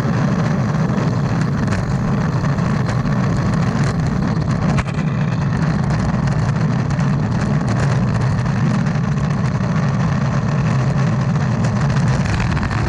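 Urethane wheels of a Sector 9 Sidewinder longboard rolling and carving on asphalt, heard up close from the board: a steady, loud, low rumble with a few faint clicks from the road surface.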